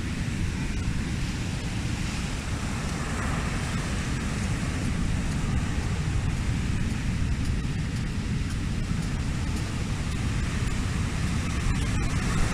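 Heavy ocean surf breaking and washing up onto a sand beach: a steady rushing noise with a strong low rumble.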